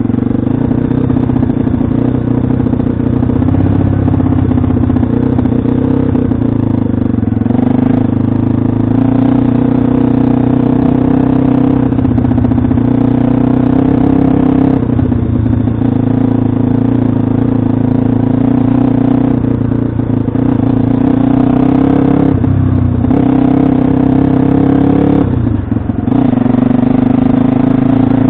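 Pit bike's single-cylinder four-stroke engine running steadily while ridden, its note dropping briefly about five times as the throttle is eased.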